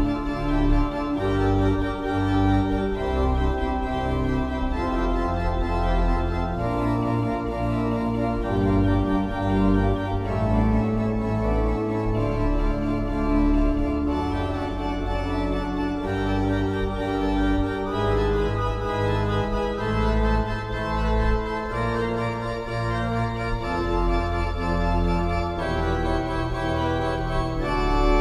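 1913 Heinrich Schiffner pipe organ playing an improvised interlude in D minor: held chords on the manual that change every second or two over deep pedal bass notes.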